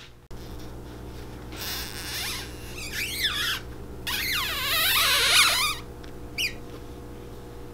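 Two long runs of squeaking that wavers up and down in pitch, then one short squeak near the end, over a steady low machine hum.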